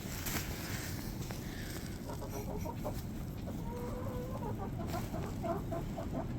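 Domestic chickens clucking softly in short calls, with one drawn-out note about four seconds in and a quick run of clucks near the end, over a steady low rumble.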